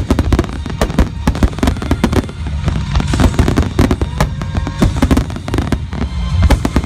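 Aerial fireworks bursting in a rapid, continuous barrage, with many sharp bangs close together over a low rumble: a finale.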